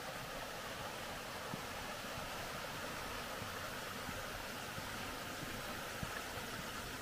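A small forest stream running over stones: a steady, even rushing hiss, with a few faint ticks.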